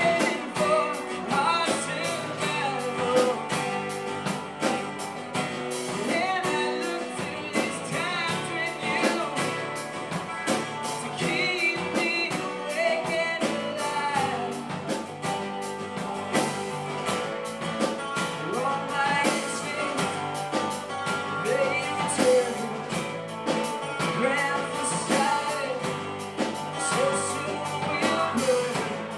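Live band performing a song: acoustic guitars strummed over a drum kit, with a singer at the microphone.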